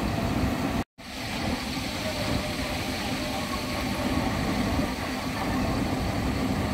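Diesel bus engines idling steadily with an even low rumble. The sound cuts out for an instant about a second in, then fades back up.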